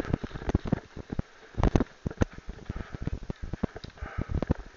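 Footsteps crunching and rustling through dry leaf litter and undergrowth at a fast pace: an uneven run of thuds, crackles and snaps.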